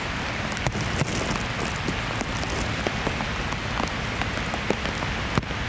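Heavy rain falling steadily, a dense patter with many sharp taps of single drops striking close by.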